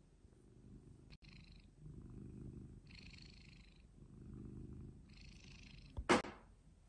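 Tabby cat purring close up, the low rumble swelling and fading about every two seconds with breathy hiss between. A brief sharp noise about six seconds in.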